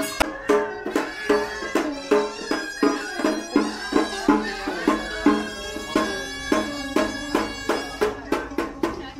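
Traditional Vietnamese ceremonial music: a reedy wind instrument plays a sustained, nasal melody over steady percussion strikes about two or three times a second.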